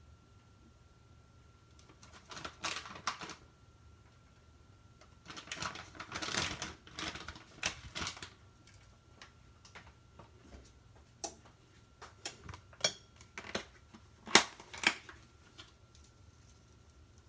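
Plastic bag of shredded cheese crinkling and rustling in two bursts, then a run of separate sharp clicks and taps in the second half, the loudest about fourteen seconds in.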